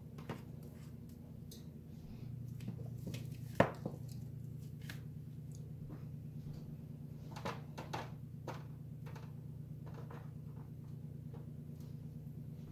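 Kitchen handling noises as cookie dough balls are set out on baking sheets: scattered light taps and clicks, with one sharper knock about three and a half seconds in, over a steady low hum.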